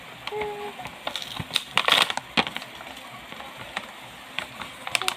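Doll box packaging crinkling and crackling as it is handled and pulled open, in scattered crackles with a louder burst of rustling about two seconds in.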